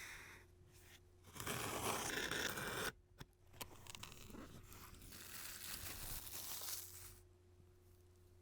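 Product packaging being torn open: a loud tearing rip lasting about a second and a half that stops abruptly, followed by quieter rustling and a few light clicks for about four seconds.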